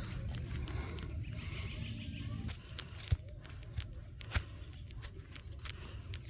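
Steady, high-pitched chorus of insects such as crickets, with a few sharp clicks about three and four and a half seconds in.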